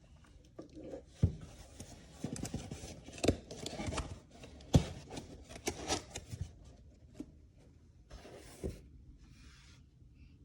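Objects being handled at close range: irregular clicks and knocks with rubbing and scraping, then two short hissing bursts near the end.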